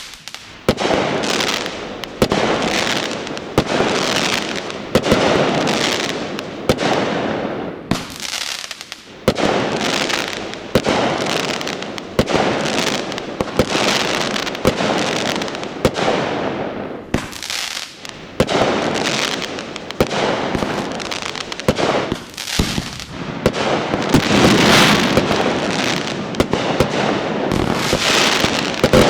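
Fireworks shells bursting one after another, about one bang a second, each trailing off before the next, with a few brief lulls.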